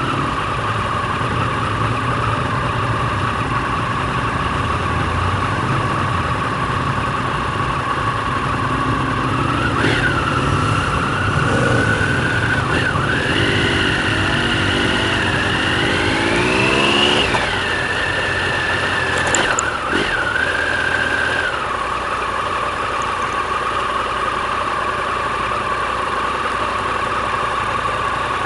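Aprilia Tuono motorcycle engine running as it is ridden, heard from a camera mounted on the bike. The revs and pitch climb from about 13 to 17 seconds in, then drop back and settle.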